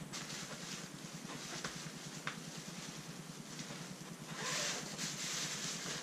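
Rustling of plastic bags and fabric as a hand rummages in a suitcase lid pocket. It gets louder for a moment after about four seconds.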